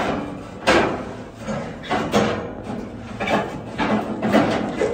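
Handling noise from an electric sauna heater's sheet-metal housing: a run of knocks and scrapes as hands work the cover plate while seating new heating elements.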